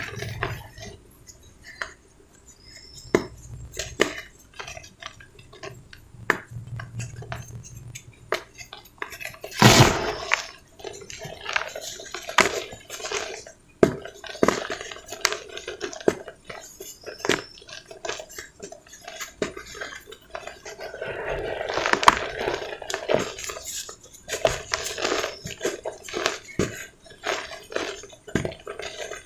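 Dry cement balls crushed and crumbled between the fingers over loose cement powder in a metal basin: a steady run of crisp crunches and crackles. The loudest crunch comes about a third of the way through, and there is a denser, louder spell of crumbling about three quarters through.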